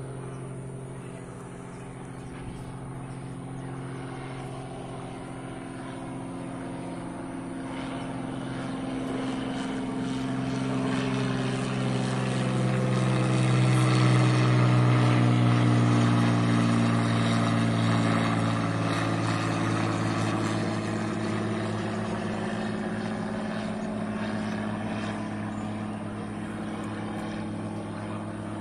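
Light single-engine propeller plane towing a banner, its engine drone swelling as it passes close overhead about halfway through, then fading as it flies off, the pitch dropping slightly as it passes.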